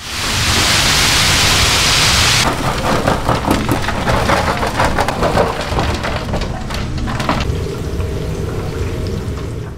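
Fried chicken sizzling and crackling in hot deep-fryer oil. A loud hiss for the first couple of seconds breaks off suddenly into a lighter crackle with many scattered pops.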